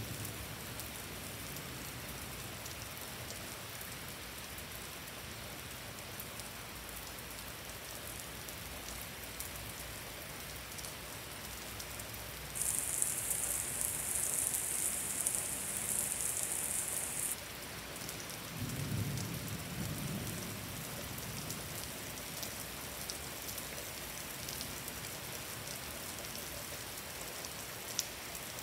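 Steady rain falling, with a low rumble of thunder lasting about two seconds a little past the middle. Just before the thunder, a louder high hiss starts and stops abruptly and lasts about five seconds.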